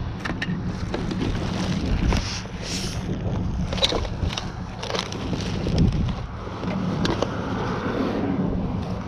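A steady low mechanical hum, like an engine running, with scattered knocks and clatter of objects being handled.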